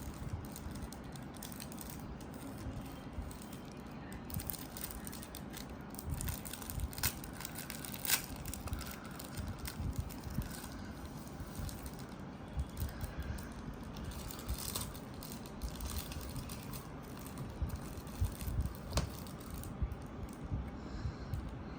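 Plastic packaging rustling and crinkling as a toy kit's spatula is unwrapped, with small irregular clicks and knocks of handled plastic parts.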